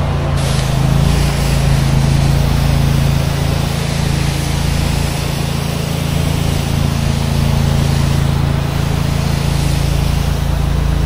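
Gas engine of a pressure-washing rig running steadily, with a constant hiss over its hum from the spray while the house is being washed.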